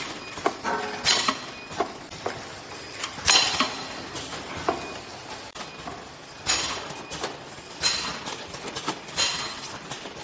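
Automatic jar capping and labeling machinery running: an irregular clatter of clicks and knocks from plastic jars and moving parts, with short bursts of hiss every few seconds.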